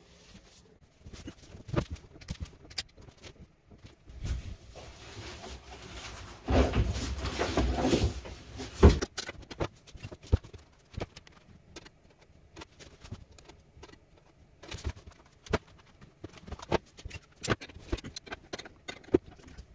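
Handling noise from work on wiring and tools: scattered clicks, clinks and knocks, with a louder stretch of scraping and shuffling about six and a half seconds in that ends in a sharp knock about two seconds later.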